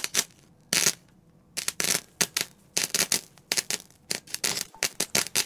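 A quick, uneven run of short scratchy crackles, some two dozen in all, with brief gaps between them.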